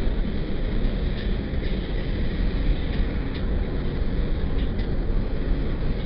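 Steady in-car road noise of a car cruising on a highway: a continuous low rumble of tyres and engine heard from inside the cabin.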